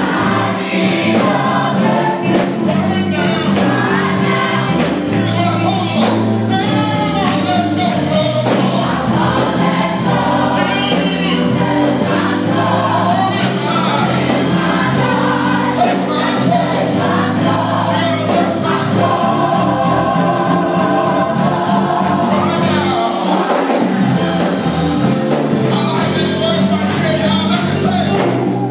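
Gospel choir singing with instrumental backing and a steady bass line.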